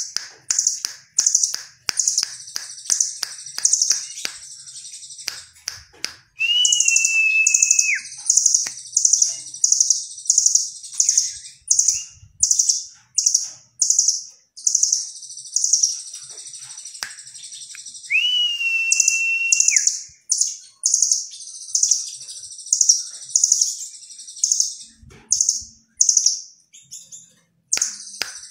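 Caged blue nuthatch singing a long run of sharp, high chirps at about three to four a second. Its song is broken twice, about six seconds in and again about eighteen seconds in, by a long, steady whistle of about a second and a half.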